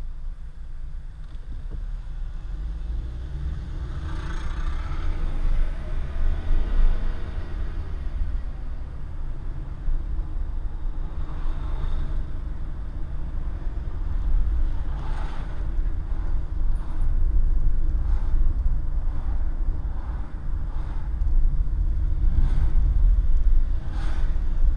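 Car driving, heard from inside the cabin: a steady low engine and road rumble that grows louder as the car gathers speed. About four seconds in a pitch rises and falls over a few seconds, and short clicks or knocks turn up now and then in the second half.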